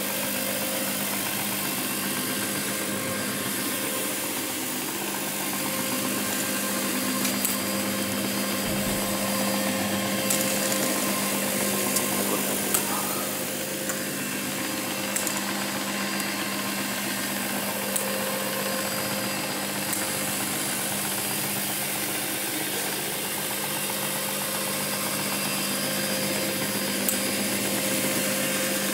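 Encapsulation carpet-cleaning machine running steadily over carpet tiles: a constant motor hum over a brushy hiss, with a few faint clicks.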